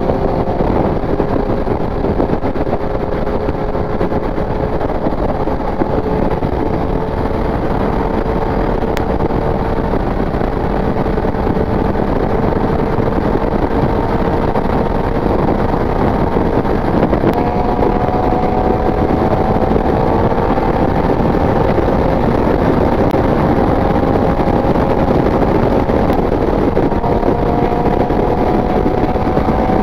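Riding motorcycle's engine pulling steadily uphill under heavy wind noise; its note climbs slowly and drops back a few times as the rider changes gear.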